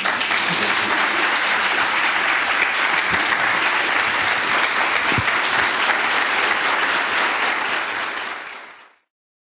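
Audience giving a standing ovation: steady, dense applause that fades out near the end and cuts to silence.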